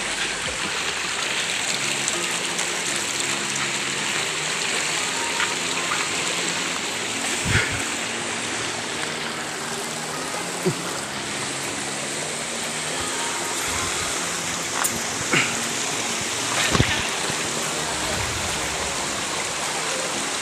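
A shallow mountain stream running over rocks, a steady rushing and trickling of water. A couple of brief low thumps come about a third of the way in and again later.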